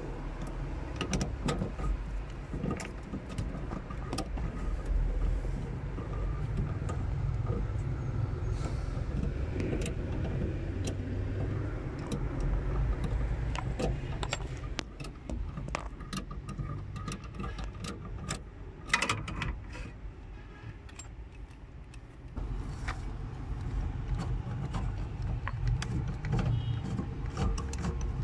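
Clicks, knocks and small metallic rattles of hands and tools working at a car's accelerator pedal assembly under the dashboard, over a steady low rumble.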